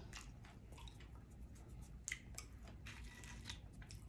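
Faint close-up chewing of fried food, with many soft mouth clicks and smacks.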